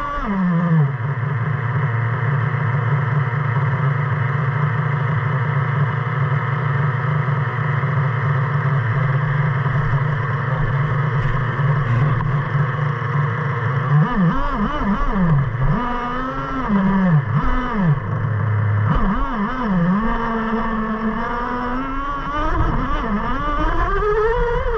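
Traxxas Revo 3.3's two-stroke nitro engine idling steadily, then revved up and down several times from about fourteen seconds in, with a last rise in pitch near the end as the truck drives off.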